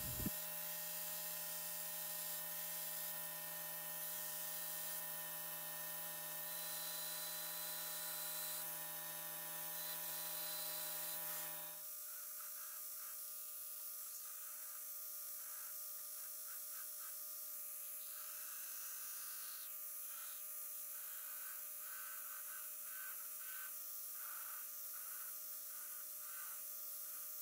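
Belt grinder running steadily with a motor hum and whine as steel is ground on the belt. The tone changes abruptly about twelve seconds in.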